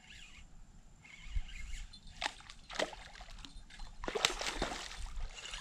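Water splashing and sloshing irregularly, with sharp splashes about two seconds in and again just past four seconds: a hooked channel catfish thrashing at the surface while it is fought on rod and reel.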